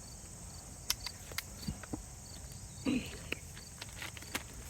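Crickets chirping steadily in the background, with a few sharp clicks scattered through and a short low vocal sound about three seconds in.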